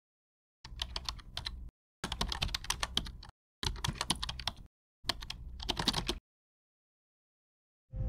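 Computer-keyboard typing sound effect: four quick runs of key clicks, each about a second long, with short silent gaps between them. A low rumble starts right at the end.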